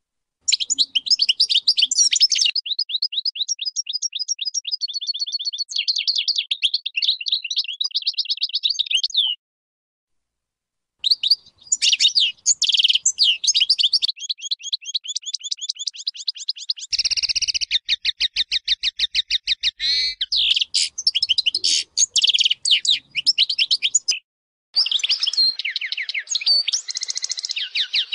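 European goldfinch of the large 'Major' type singing: fast, high twittering phrases and rapid trills. There is a very even, fast trill about seventeen seconds in, and short pauses about nine seconds in and near the end.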